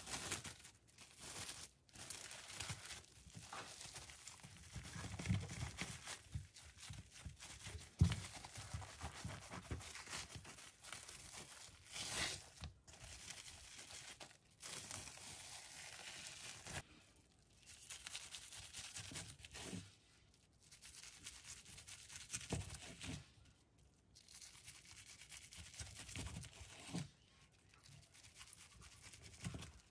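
Handling noises: crinkling and rustling in irregular bursts with brief pauses, and one sharp knock about eight seconds in.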